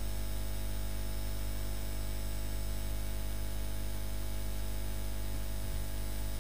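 Steady electrical hum and hiss, unchanging throughout.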